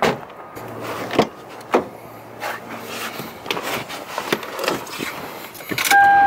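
Scattered knocks and clunks, a few seconds apart, then a loud steady electronic beep tone that starts near the end.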